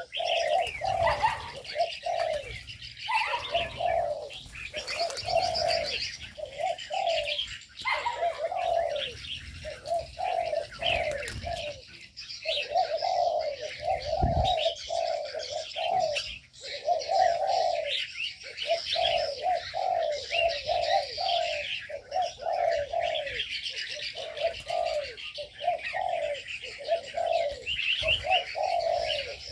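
Several doves cooing over and over, their low coos overlapping almost without pause, with small birds chirping higher up throughout. A brief low thump about halfway through.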